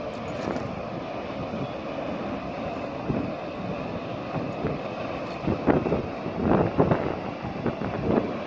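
Steady rushing roar of a waterfall, with gusts of wind buffeting the microphone in the second half.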